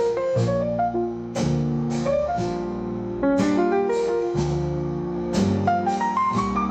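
Instrumental music: quick runs of pitched notes over a sustained bass line, with strong accents about once a second and a rising run near the end.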